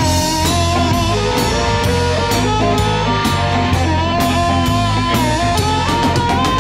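Electric blues band playing an instrumental stretch: guitar, bass and drums with a lead line of held, bending notes over a steady beat.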